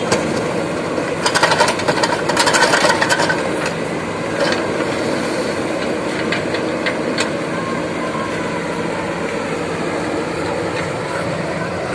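JCB 3DX backhoe loader's diesel engine running steadily under work. About a second in comes a burst of clattering, lasting around two seconds, as a bucketload of mud and clods is dumped into the metal tractor trolley. A few lighter knocks follow as the arm swings back to dig.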